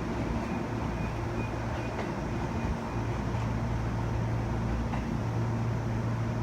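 Inside a JR West 207 series electric train car: steady low running hum and rumble of the train, with a couple of faint clicks from the wheels.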